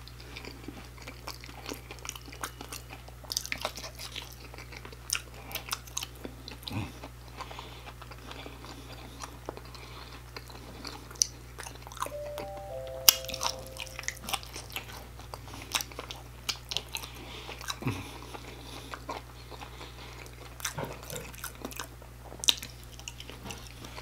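Close-miked chewing of sauce-coated fried shrimp: biting and chewing with irregular crunchy clicks and wet mouth sounds throughout.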